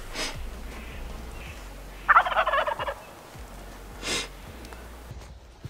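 A wild turkey tom gobbles once, about two seconds in: a rapid rattling call lasting just under a second.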